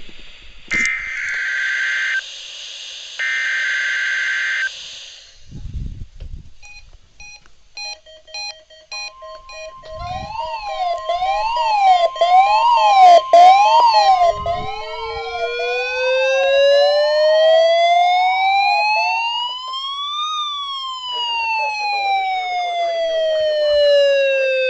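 NOAA Weather Radio test alert: the last two bursts of the SAME digital header (shrill buzzing data tones), then the steady warning alarm tone for about ten seconds. Weather radio receivers sound their own alarms over it: beeping, a repeating up-and-down yelp, and a siren tone that rises for several seconds to a peak near the end and then slowly falls.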